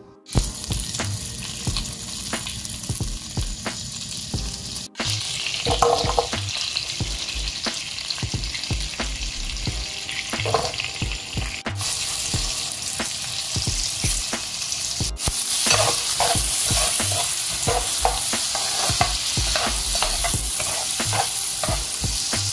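Diced onion sizzling in a frying pan while a metal spoon stirs it, scraping and tapping the pan. The sizzle breaks off briefly a few times and grows louder about two-thirds of the way through.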